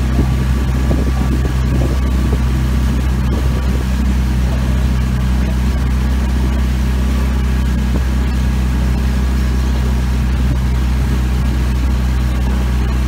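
Outboard motor of a launch running steadily at cruising speed, a constant low engine drone.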